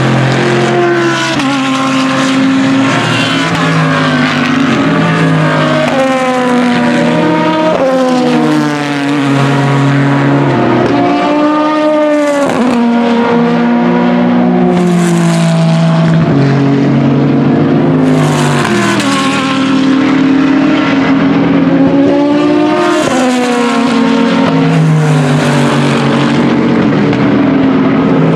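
Several race car engines running at once around the circuit, their pitches climbing and dropping as the cars accelerate, shift gears and go past. A little before halfway one passing car's note falls sharply.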